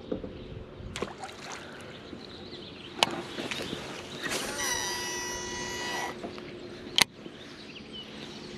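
A cast with a Shimano Metanium DC baitcasting reel: sharp clicks, then about two seconds of the reel's high electronic-sounding whine as the DC brake controls the spinning spool, ending with a loud click as the reel is engaged. A boat's electric trolling motor hums steadily underneath.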